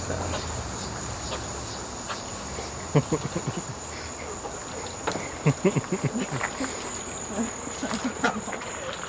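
Steady high-pitched drone of crickets or similar insects, with a few short, low pitched sounds breaking in about three seconds in and again between five and six and a half seconds in.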